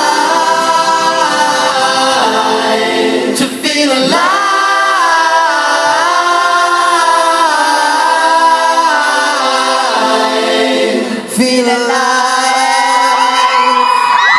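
Male pop singer singing live into a microphone, long held notes with many voices singing along and little or no band behind them. Near the end, high screams and cheers from the audience rise in.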